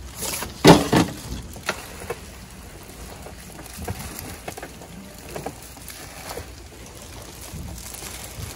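Stainless-steel food pans and a lid clattering as they are shifted, with a few sharp metal knocks about a second in. Then softer rustling and light clicks follow as plastic-gloved hands toss glass noodles in the pan.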